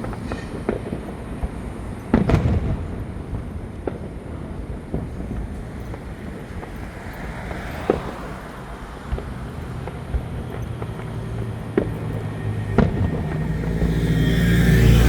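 Fireworks going off: a handful of sharp bangs at irregular intervals, the loudest about two seconds in with a trailing echo. Under them is a steady low rumble that swells near the end.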